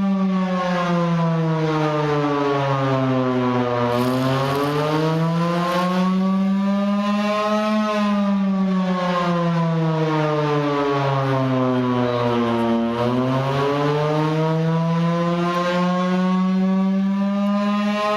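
Civil defence siren wailing: a low tone with many overtones that slides slowly down and up in pitch, falling for about four seconds and rising again over about nine-second cycles.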